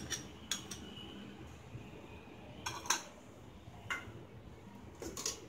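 A metal spoon and bowls clinking: a handful of separate light clinks with quiet gaps between them, as curd is scraped from a glass bowl into a steel mixing bowl of gram flour.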